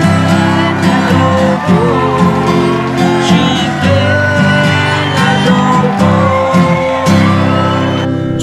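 Acoustic guitar strummed in chords, with a voice singing along.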